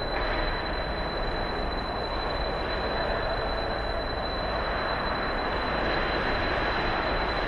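Steady ambience inside an ice hockey arena: an even rushing noise with a thin, constant high whine over it, and no distinct puck or stick hits.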